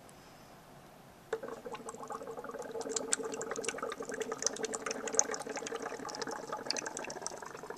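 Oxygen gas from a pressurised can bubbling into an inverted water-filled bottle held underwater: collecting gas by water displacement. It starts suddenly about a second in and runs steadily, with a steady tone and a rapid crackle of bubbles.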